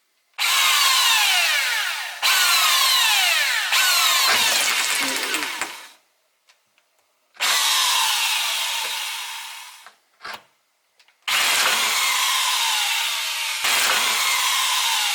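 Power drill boring into a car's sheet-metal roof, run in three long stretches of repeated trigger pulls with short pauses between, its whine sliding down in pitch as the bit bites into the metal.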